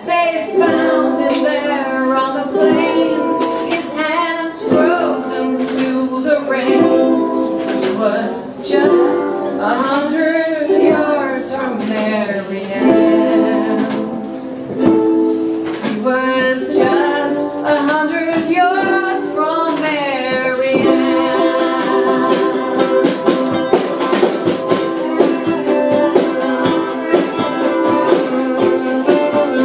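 Live group music: voices singing a song over strummed acoustic string instruments. About twenty seconds in, the singing stops and the strumming carries on alone as an instrumental passage.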